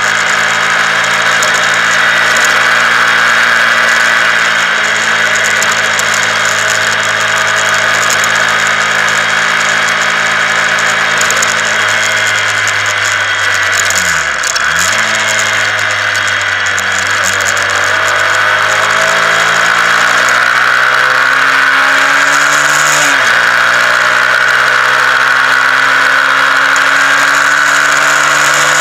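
Honda CBR125R's single-cylinder four-stroke engine heard from on board while riding, with wind noise over the microphone. It runs steadily, drops in pitch as the bike slows about halfway through, then climbs as it accelerates, with a sudden drop at a gear change near the end before rising again.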